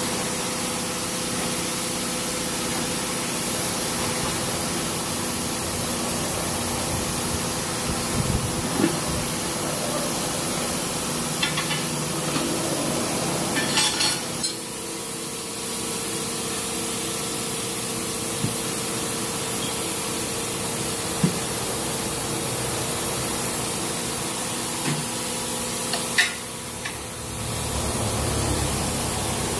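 Tire shop machinery running with a steady hiss of air and a faint hum as a tire changer is worked, with a few sharp metal knocks as the tire bead is levered over the rim.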